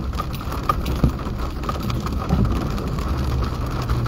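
Rain falling on a pickup truck, heard from inside the cab, over the low, steady hum of the truck's engine and tyres on a wet road. A single sharp click about a second in.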